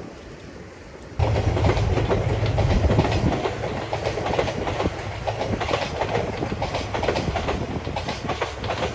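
Container freight train passing on the rails, starting abruptly about a second in: wheels clacking over the rail joints in a dense run of clicks, over a strong low drone that eases after the first couple of seconds.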